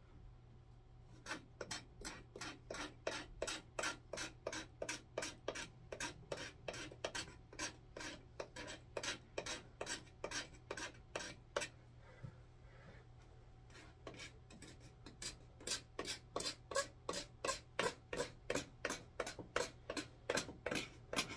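Knife blade scraping old shellac off a wooden handsaw handle, in quick, even back-and-forth strokes of about two to three a second. It pauses briefly around the middle, then resumes.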